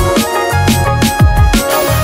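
Background electronic music with a fast, steady, punchy drum beat.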